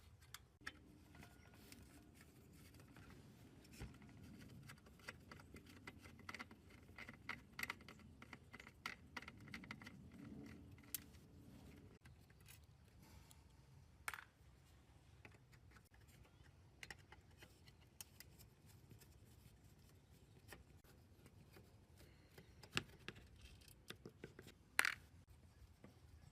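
Quiet hand-work sounds from restoring an old amplifier: scattered clicks, taps and scraping of small tools and parts, with a faint low hum through the first half and a sharper click near the end.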